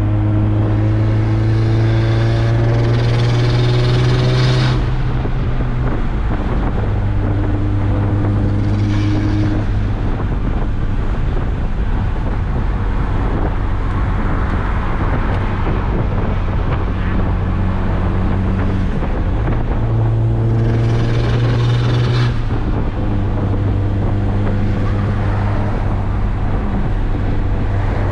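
Mazdaspeed3's turbocharged 2.3-litre four-cylinder running through a full CPE exhaust with a catless downpipe, loud and steady. Twice, at the start and again about two-thirds of the way through, its pitch climbs slowly under throttle and then cuts off suddenly as it lifts off, settling back to a steady cruise.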